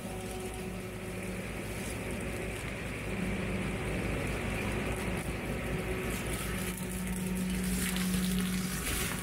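Massey Ferguson 4707 tractor's diesel engine running under load, driving a Baumalight CP572 brush cutter as it shreds brush: a steady engine hum over a dense rushing hiss.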